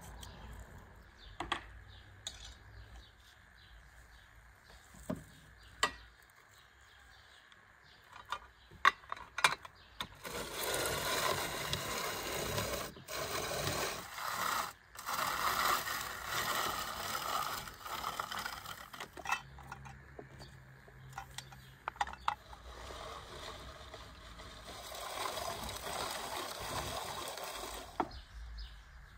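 A hand-cranked rotary drum grater being turned, a steady rasping grind that starts about ten seconds in, breaks off briefly twice and comes back for a few seconds near the end. Before it, a few sharp clicks and squeaks from a metal garlic press.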